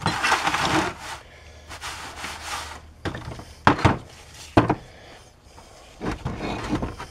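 Rubbing and handling noises of a rag and a metal wheel bearing housing, with two sharp knocks a little under a second apart as the housing is set down on wooden blocks on a workbench.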